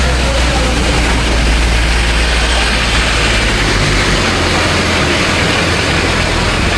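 A motor vehicle's engine running steadily, with a low hum under a continuous rushing noise.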